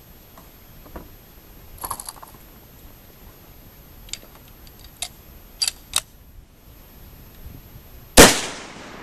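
A scoped bolt-action rifle being loaded, with a few sharp metallic clicks as the bolt is worked, then a single loud rifle shot about eight seconds in that rings out briefly. It is the first test shot after bore-sighting by eye.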